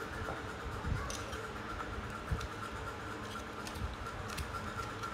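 Light clicks and ticks from a plastic baby bottle and its parts being handled, with a few soft low bumps, over a steady faint hum.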